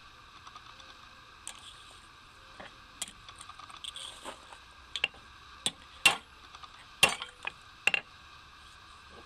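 Steel knife blade and hammer clinking and knocking against an anvil as they are handled: a string of sharp metal clinks, the loudest about six and seven seconds in.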